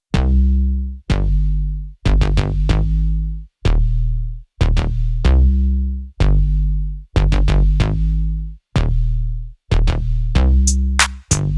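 Background electronic music: deep bass notes on a drum-machine beat, about one beat a second, with hi-hats coming in near the end.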